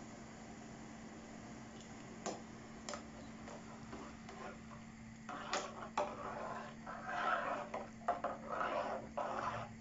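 A spoon clicking against an aluminium cooking pot, then stirring hot water in it, scraping the pot and swishing the water, from about halfway on. A steady low hum runs underneath.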